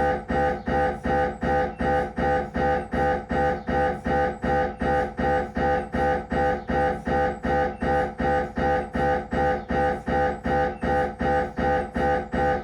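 Siemens Magnetom Avanto MRI scanner's gradient coils pulsing during a head-scan sequence: a loud pitched buzz repeating in an even rhythm, a little over two pulses a second, without change.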